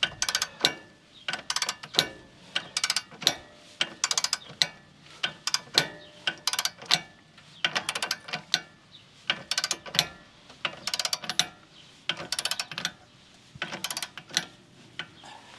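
Ratcheting torque wrench clicking as it cranks the screw of a C-clamp ball joint press, short runs of rapid clicks about once a second with each swing of the handle, as a ball joint is pressed into the axle knuckle under slow, steady pressure.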